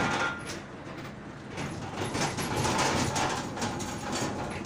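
Road and wind noise in the back of a moving van driving with its rear doors open, with frequent rattles and knocks throughout.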